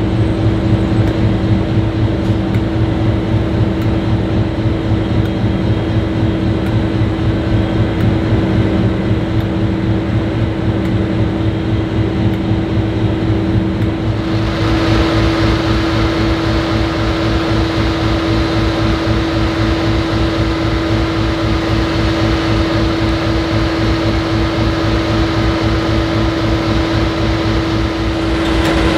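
N class diesel locomotive's EMD V12 two-stroke engine running, a steady low throb with a constant hum over it. About halfway through the sound turns brighter and nearer.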